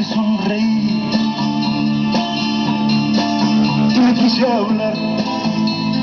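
Guitar-led rock music played loud from a cassette through a Panasonic RX-6400 boombox's speakers, in mono, with a downward pitch slide a little past four seconds in.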